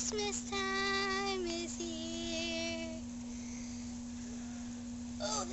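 A young girl singing alone, holding two long notes one after the other for about three seconds, then breaking off.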